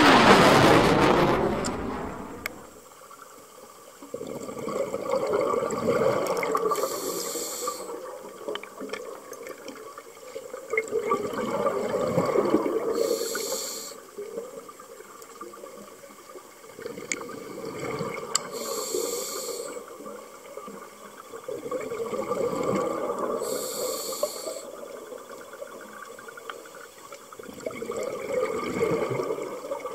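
Scuba diver breathing through a regulator underwater: about every six seconds a long bubbly exhale swells up, then a short hissing inhale follows, about five breaths in all. A loud whooshing sound fades out over the first two seconds.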